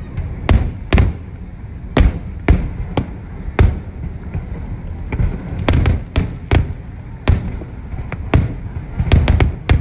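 Aerial firework shells bursting in a display: a series of sharp bangs spaced about half a second to a second apart, bunching into a quick run of bangs near the end.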